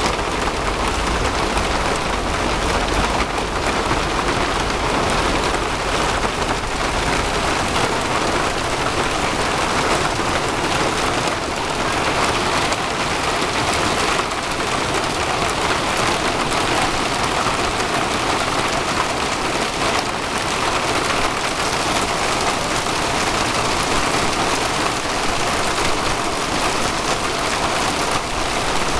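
Hail and heavy rain pelting down in a dense, steady clatter. A low rumble runs beneath it for the first seven seconds or so, then fades.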